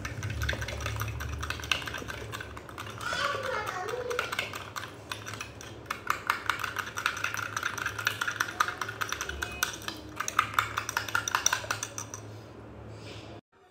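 A metal spoon beating a thick cream, mayonnaise and sugar mixture into a paste in a small ceramic bowl: a rapid, uneven run of light clicks and scrapes against the bowl.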